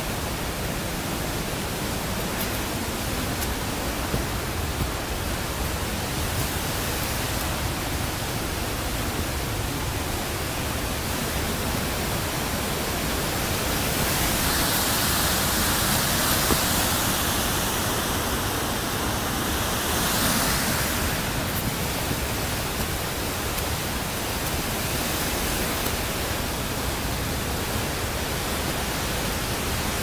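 Steady rushing of a mountain stream's cascades and waterfall, a constant hiss of white water that grows louder for several seconds in the middle.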